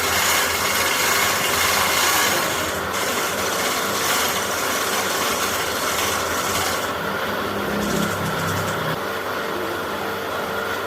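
Steady, loud mechanical running noise with a rasping hiss, unbroken throughout.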